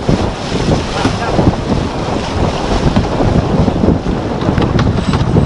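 Wind buffeting the microphone over water rushing and splashing along the hull of a Jeanneau Sun Fast 3200 racing sailboat heeled under sail.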